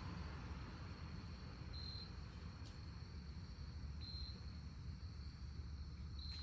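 Insects trilling: a steady high, thin trill with a louder pulse about every two seconds, over a low outdoor rumble.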